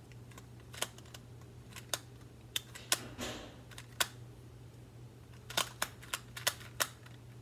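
Large plastic 2x2 puzzle cube being turned by hand: its layers click sharply and irregularly as they snap into place, with a short rasping slide about three seconds in.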